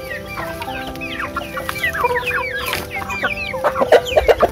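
A flock of chickens clucking and calling, many short falling calls overlapping, with a run of louder clucks near the end. Background music with held notes plays underneath.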